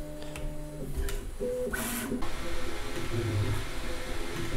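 Bambu Lab A1 3D printer running a print: its stepper motors give off steady, then shifting, pitched whines as the print head and bed move. An even hiss joins about two seconds in.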